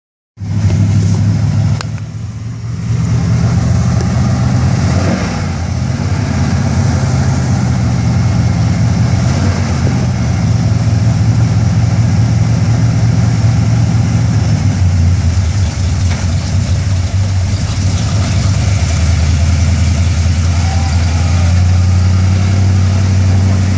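Lifted Jeep's engine running steadily at low revs as it works up a rock ledge, with a brief dip in loudness about two seconds in.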